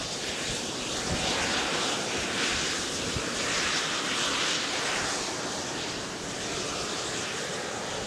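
Volcanic fumarole roaring steadily as steam and sulphur gases escape from the hot crater floor. It swells a little in the middle.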